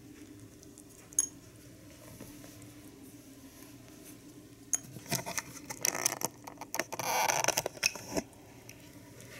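Pet rabbit eating a peach slice off a small ceramic saucer. There is one click about a second in. From about five seconds there is a dense run of clicks and scraping for about three seconds as it bites and pulls the slice off the plate.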